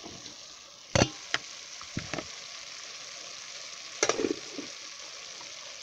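Raw potato chunks tipped from a plastic bowl into an aluminium pot of cooking greens, landing with a few sharp knocks about a second in, around two seconds and again at about four seconds, over a steady sizzle from the pot.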